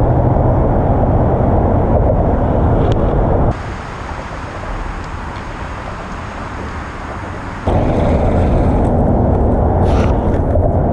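An engine running steadily under a heavy rush of wind or water noise. It drops off abruptly about three and a half seconds in to a quieter stretch, then comes back just as suddenly near eight seconds.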